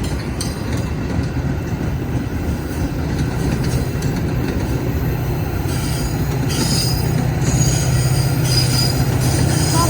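Metra commuter train pulling out of a station, a steady low rumble of the train and its wheels on the rails that slowly grows louder. A bit over halfway through, high-pitched steel wheel squeal comes in over the rumble.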